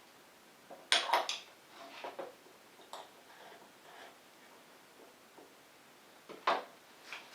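Clinks and knocks of espresso-making gear and crockery being handled: a cluster of sharp knocks about a second in, lighter taps after it, and one more sharp knock near the end.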